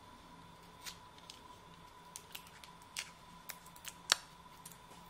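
Paper wrapper being peeled and torn off a soft pastel stick: a run of small, crisp paper snaps and crackles at irregular moments, the sharpest about four seconds in.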